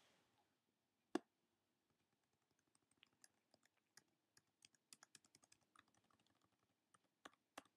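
Computer keyboard and mouse clicks: one sharp click about a second in, then a run of faint, quick clicks.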